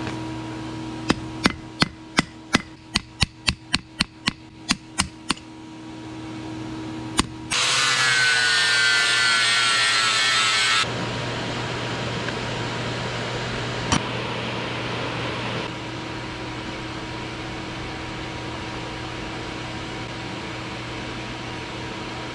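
Hand hammer striking hot steel on an anvil, about a dozen blows in quick succession that fade toward the end. Then a louder whirring noise with a falling pitch lasts about three seconds, followed by a steady machine hum.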